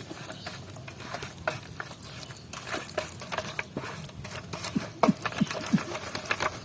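Hands mixing ground spices and pastes with mustard oil into a masala: wet squelching and small clicks, with a few louder squelches about five seconds in.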